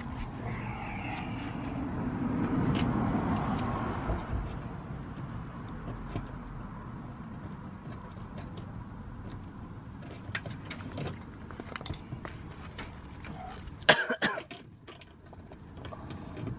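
Rustling handling noise for the first few seconds, then scattered small clicks and taps of hands fitting hardware into a car door's speaker mounting, with a sharp burst of clatter about 14 seconds in.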